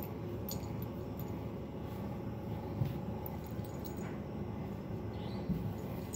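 Faint scuffling and light knocks of a kitten play-fighting a hand on a cloth, over a steady low hum, with a faint short squeak about five seconds in.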